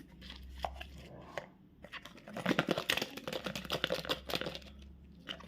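Candy wrapper being torn open and crinkled: scattered crackles, then a dense run of crackling about two seconds in that lasts a couple of seconds.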